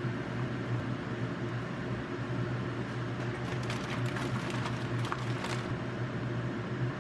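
A steady low machine hum, with a short run of light clicks and clinks in the middle.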